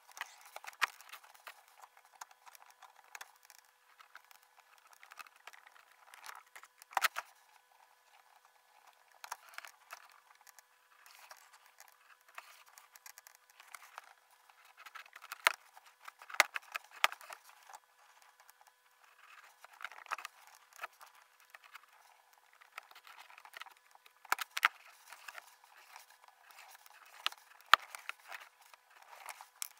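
Laparoscopic instruments clicking and scraping as they work needle and thread through a practice bowel model inside a box trainer, played back at five times speed: an irregular scatter of sharp clicks and short scratchy rustles, a few louder snaps among them.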